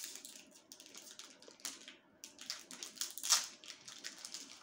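Foil wrapper of a Pokémon trading-card booster pack crinkling and crackling as it is picked at and torn open by hand, in quick irregular crackles, the sharpest a little past three seconds in.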